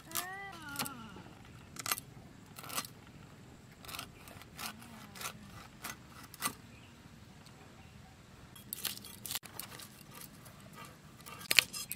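Whole hilsa fish being scaled against the metal blade of a boti: short, irregular scraping strokes in quick clusters as the scales are rasped off, with a louder run of strokes near the end.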